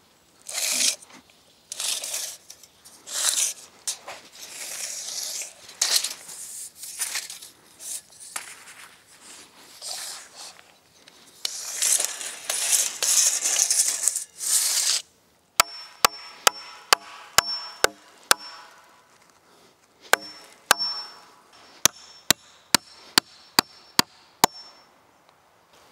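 Irregular rustling and scraping for the first half. Then a steel hammer strikes sharply about three times a second in two runs, each blow with a short metallic ring, nailing a wooden pole down along the edge of a plastic tarp roof.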